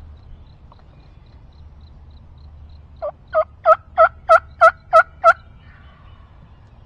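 Wild turkey yelping: a series of eight evenly spaced yelps, about three a second, that grow louder over the first few notes, each note dropping from a higher to a lower pitch.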